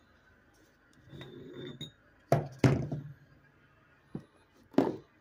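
Aluminium pistons on their connecting rods being handled and set down on a wooden workbench: a light shuffle, then three sharp knocks, two in quick succession and one more near the end.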